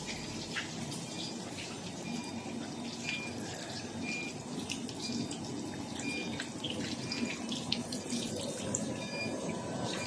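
Stone-carving CNC router at work under water coolant: a steady rush of water with scattered short high clicks.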